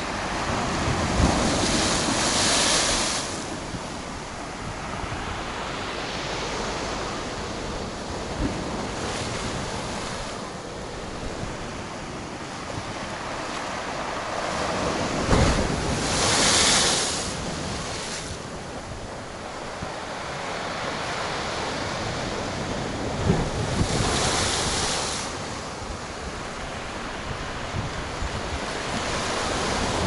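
Heavy storm surf: large waves breaking and crashing on the shore three times, about a second in, around the middle, and past three-quarters of the way, each a loud rushing surge over a steady wash of water. Wind buffets the microphone.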